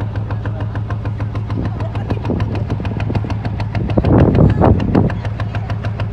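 A boat engine running steadily, with an even, rapid knocking pulse of about five or six beats a second over a low hum. About four seconds in, a louder rushing surge lasts about a second.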